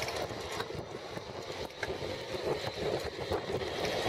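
Riding noise of an electric bicycle on a paved road: a steady rush of wind and tyre noise with scattered clicks and rattles.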